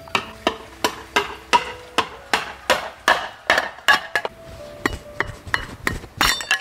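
A cleaver chopping repeatedly into the end of a fresh green bamboo tube standing on a wooden stump, splitting it lengthwise: sharp chops about two or three a second, with a quick run of strikes near the end.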